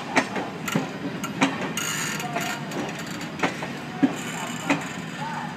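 Deccan Queen's passenger coaches rolling slowly past, with a steady rumble and irregular sharp clicks and knocks as the wheels pass over rail joints.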